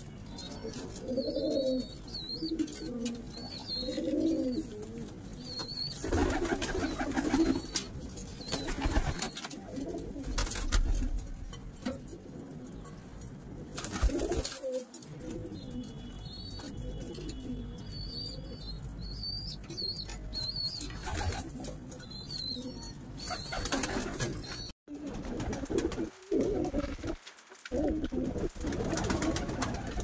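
Royal Teddy pigeons cooing, a run of low repeated coos most plain in the first few seconds, with small birds' thin high chirps over them and a few short bursts of rustling noise.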